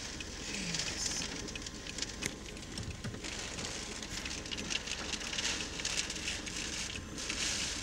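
Storm rain falling: a steady hiss with many small raindrop ticks throughout.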